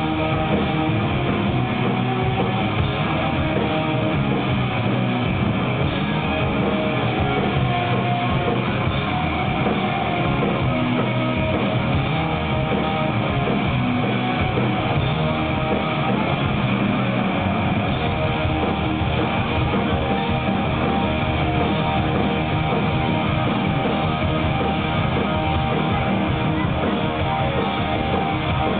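Stoner rock band playing live: electric guitars over bass and drums in a dense, continuous wall of sound, with the bottom end coming in fuller a little past halfway.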